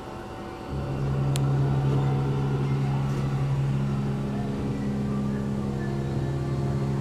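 A 2003 Otis hydraulic elevator's pump motor starts about a second in and runs with a steady hum as the car rises, with a single sharp click just after it starts.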